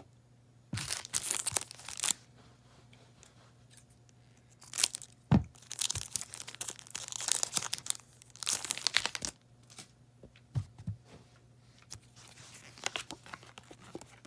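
Foil booster-pack wrapper being torn open and crinkled, in several bouts of crackly tearing and rustling, with a single soft thump about five seconds in.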